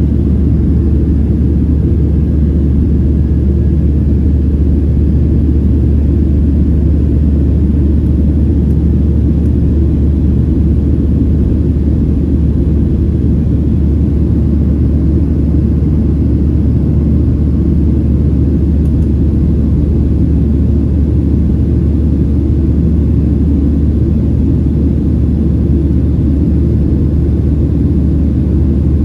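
Steady, loud low rumble inside the cabin of a Boeing 737-700 in flight after takeoff: its CFM56-7B turbofan engines and the airflow, heard from a window seat over the wing.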